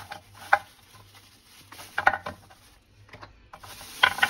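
Frozen cubes being popped out of a flexible plastic ice tray into a plastic bag: crinkling bag and short clattering knocks of the cubes, in a few brief clusters with a pause a little after three seconds in.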